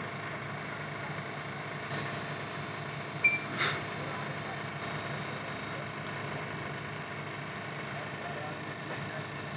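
Borewell drilling rig's engine running steadily at idle, a low hum with a steady high whine over it. A few short clicks and knocks come about two to four seconds in.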